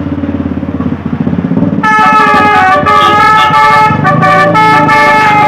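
An engine runs for the first two seconds. Then a bus's Basuri telolet horn, a multi-trumpet musical air horn, starts about two seconds in and plays a tune of several tones sounding together, changing pitch every second or so.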